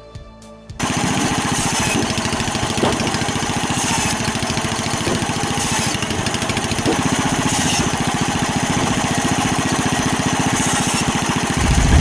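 Engine-driven machinery running steadily with a fast, even pulse. It comes in abruptly about a second in.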